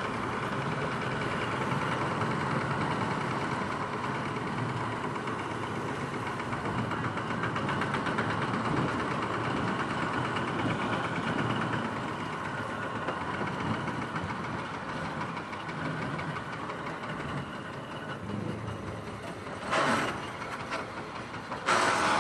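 Motorcycle engine running steadily at low speed while riding, with two short louder rushes of noise near the end.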